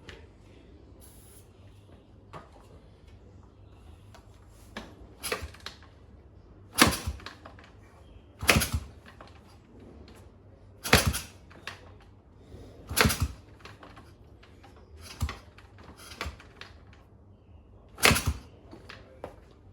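Kick-start attempts on a Honda 125 single-cylinder four-stroke engine that is missing its second compression ring: a series of sharp clacks about every two seconds, and the engine does not fire.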